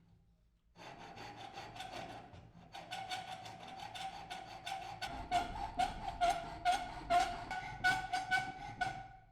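A hand tool worked back and forth on wood in quick scraping strokes, about three a second, over a steady high ring; it starts about a second in.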